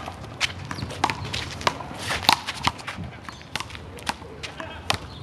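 Handball rally: a small rubber ball smacked by hands and slapping off the wall in sharp, quick hits about every half second to second, with players' footsteps scuffing the court.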